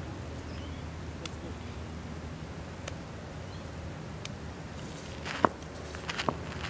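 Footsteps on a dirt and gravel cricket run-up coming closer near the end, with a sharp knock that rings briefly about five and a half seconds in and a smaller knock soon after, over a steady low background.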